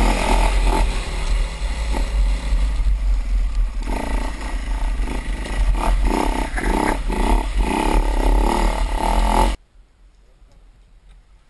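Trail bike engine running under the rider on a rough forest track, revs rising and falling, over a heavy low rumble. It cuts off suddenly about nine and a half seconds in, leaving only quiet background.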